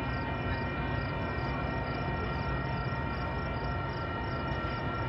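Metra diesel commuter train pulling away from the station: a steady low rumble with a constant high whine over it.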